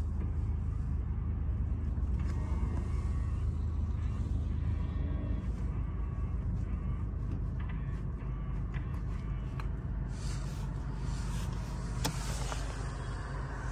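2012 Honda Civic's four-cylinder engine idling while stopped in traffic, a steady low hum heard from inside the cabin. A few faint clicks and one sharper click come near the end.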